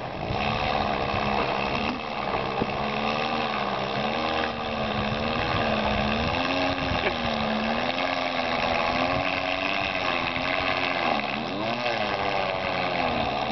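Gas weed-wacker engine converted into a canoe outboard, running hard under load and pushing the canoe across the water. Its pitch wavers up and down throughout, dipping and rising more sharply near the end.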